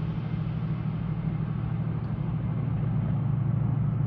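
Class 68 diesel-electric locomotive's Caterpillar V16 engine running under power as the train heads away along the line: a steady, deep drone.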